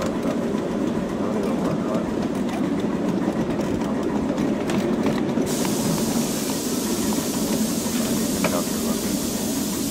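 Miniature live steam train rolling along its track with a steady rumble and occasional clicks from the wheels. About halfway through, a loud hiss of escaping steam starts suddenly and keeps going.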